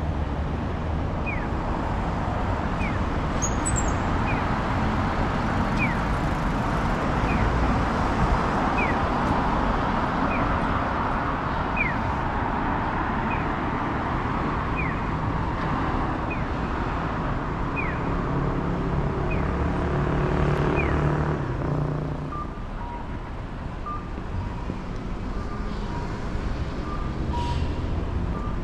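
Japanese pedestrian crossing signal for the visually impaired, sounding short electronic bird-like chirps that fall in pitch, about one a second, over steady road traffic. About three quarters of the way through the chirps stop and the traffic quietens. Short, evenly spaced beeps follow.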